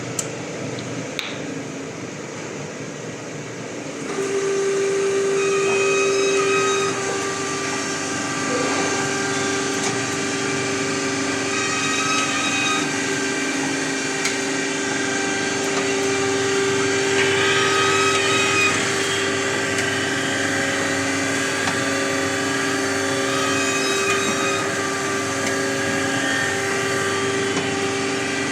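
Kapp AS 203 hob sharpening machine running, a steady mechanical hum and whine from its drives. About four seconds in it gets louder as a stronger steady tone joins in, and then it holds level.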